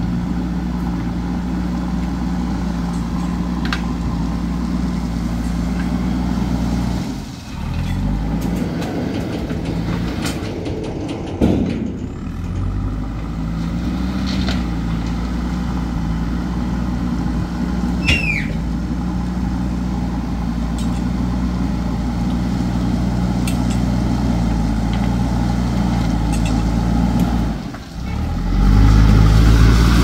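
JCB backhoe loader's diesel engine running steadily as the machine pushes gravel with its front bucket. The engine note shifts about twelve seconds in, dips briefly twice, and runs louder near the end.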